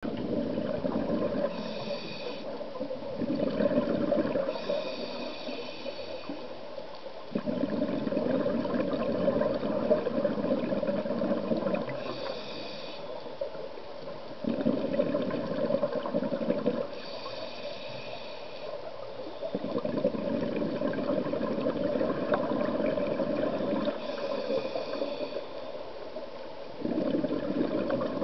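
Scuba diver breathing through a regulator underwater: a hissing inhale, then a longer stretch of bubbling exhale, repeating about every five to seven seconds.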